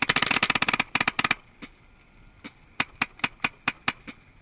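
Paintball marker firing a rapid string of shots, about a dozen a second, that stops about a second and a half in. About eight fainter single shots follow, spaced out over the next two and a half seconds.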